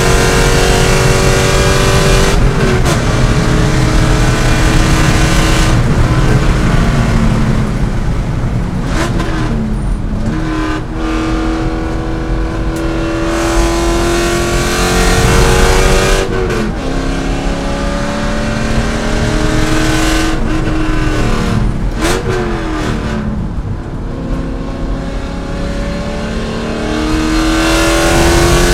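C5 Corvette's 5.7-litre V8 driven hard in a race. The engine note climbs steadily through each gear and drops sharply at the gear changes, about half a dozen times.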